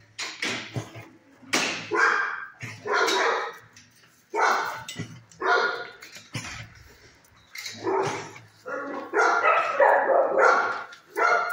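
Dog barking repeatedly, in runs of a few barks with short pauses between.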